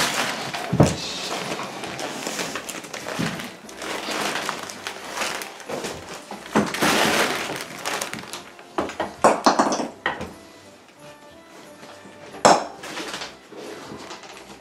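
Music playing over the rustling and crinkling of wrapping paper as wrapped things are handled, with a few sharp knocks, the loudest about a second in and another near the end.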